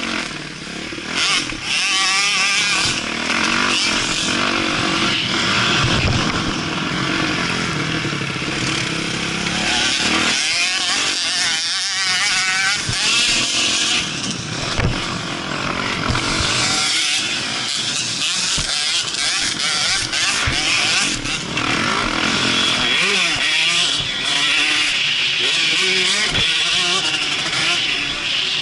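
Onboard sound of a Kawasaki KX450F four-stroke single-cylinder motocross bike being ridden hard on a dirt track. The engine revs rise and fall through throttle and gear changes, with wind rushing over the microphone.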